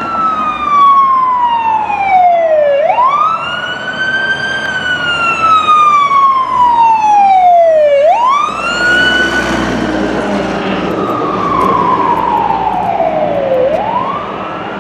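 Fire truck siren in a slow wail: each cycle climbs quickly, then falls slowly over about five seconds, and it repeats about three times. The truck's engine rumbles underneath as it passes close, about nine seconds in.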